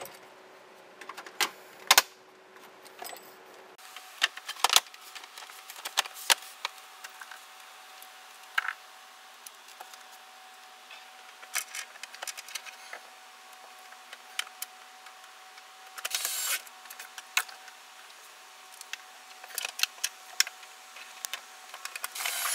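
Scattered sharp clicks, snaps and taps of plastic interior trim as a Dodge Ram's dash bezel and center console pieces are handled and pressed back into place, with a couple of brief rustles.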